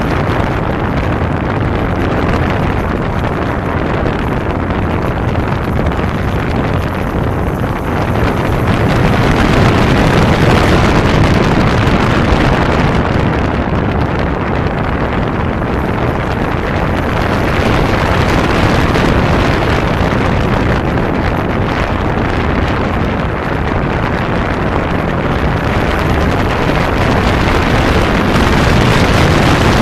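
Kawasaki Zephyr 550 motorcycle's air-cooled inline-four engine running on the move, mixed with steady wind noise on the microphone. The noise grows louder around ten seconds in and again near the end.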